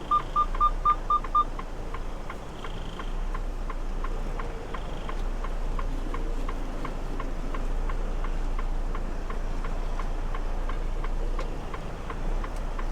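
Steady rapid ticking, about four ticks a second, over a low steady engine rumble. A fast series of short high beeps runs alongside it and stops about a second and a half in.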